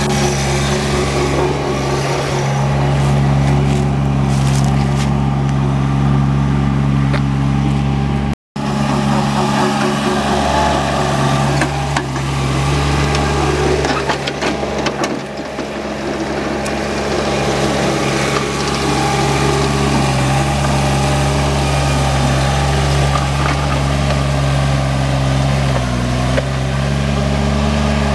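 Engine of a tracked stand-on compact loader running steadily under load while its chain trencher digs through soil, with scraping and clattering over the engine sound. The sound drops out for an instant about eight seconds in, and the engine note sags briefly near the end.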